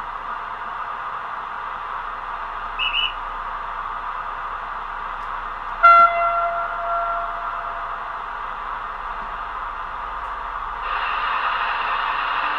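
Factory DCC sound decoder of a Roco E444R electric locomotive model playing through its small onboard speaker: a steady standing hiss of the locomotive's equipment, a short high chirp about three seconds in, then one horn blast about six seconds in that lasts about a second and a half. Near the end the hiss grows louder.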